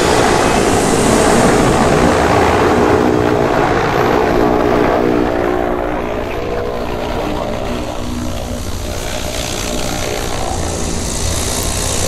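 Zeppelin NT airship's propeller engines running steadily during landing: a droning hum with several steady tones, easing off slightly after about four seconds.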